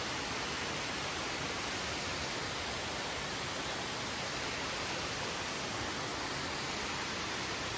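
Steady, even rushing noise of water with no distinct strokes or tones.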